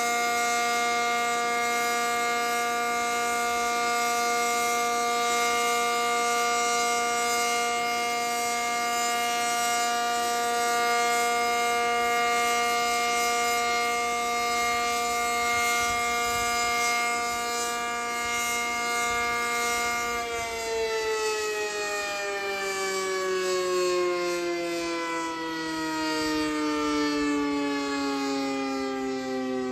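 ACA Cyclone 125 outdoor warning siren sounding a steady, single-pitch Alert tone. About two-thirds of the way in the pitch starts falling steadily as the siren winds down at the end of the signal.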